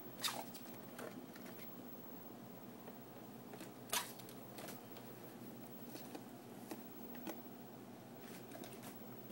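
Faint scattered taps and scratches on a cardboard box as a cockatiel moves about inside it, with one sharper tap about four seconds in and another just after the start.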